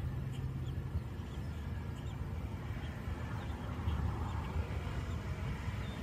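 Faint, high, short peeps a couple of times a second over a steady low rumble: tiny American robin nestlings begging as the adult robin feeds them.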